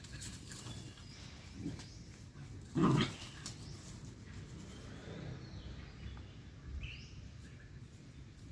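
A dog gives one short, loud vocalization about three seconds in, with a smaller one a little earlier, over the quieter sounds of dogs at rough play.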